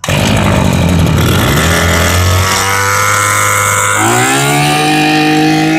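Maruyama BIGM SV20 20cc two-stroke brush cutter engine catching on the recoil-start pull and running at raised throttle. About four seconds in its speed rises and holds higher.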